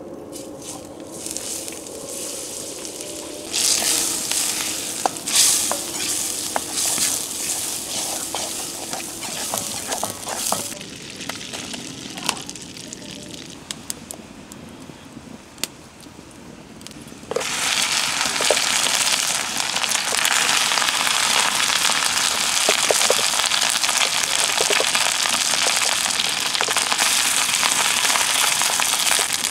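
Butter sizzling and spitting with sharp pops as it melts and foams in a wok over a wood fire. About seventeen seconds in, cooked rice goes into the hot butter and a sudden, loud, steady frying sizzle takes over.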